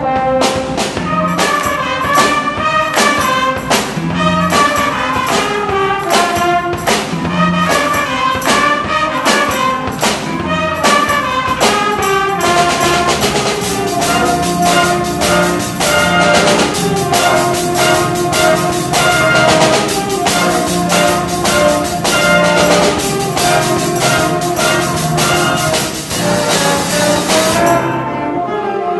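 Live band playing a lively tune: trumpets carry the melody over electric guitar and drum kit with a steady beat. The band grows fuller partway through and thins out just before the end.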